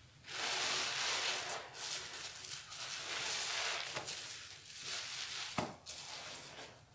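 A soap-soaked sponge being squeezed and kneaded by hand in a basin of thick suds: wet squelching and crackling foam that starts about a third of a second in and swells and eases with the squeezes. A single sharp click comes near the end.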